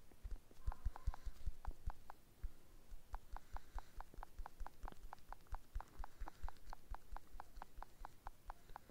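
Fingertip taps on a smartphone touchscreen, each a light click with a soft thump: a few scattered taps, then rapid steady tapping about four times a second from about three seconds in.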